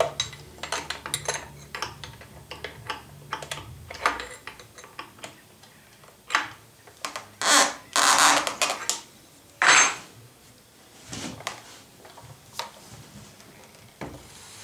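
Clicks, clinks and knocks of a Festool plunge router being handled and adjusted, then stood upright on a plywood panel, with a few louder knocks in the middle. A low steady hum runs under the first few seconds and stops about four seconds in.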